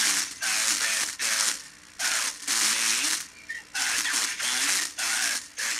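Vega 404 transistor radio playing an AM broadcast: a talking voice comes through in bursts, smothered in harsh hiss and distortion.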